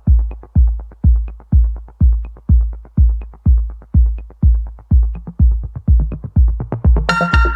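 Electronic background music: a deep kick drum on a steady beat about twice a second, with synth chords coming in near the end.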